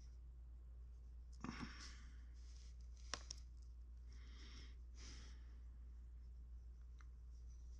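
Near silence over a steady low hum, with faint handling sounds of clay modelling by hand with a hobby knife: a few soft rustles and one sharp click about three seconds in.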